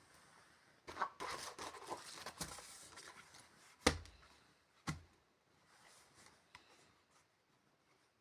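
Rustling and scraping for a couple of seconds, then two sharp knocks about a second apart, followed by faint rustling.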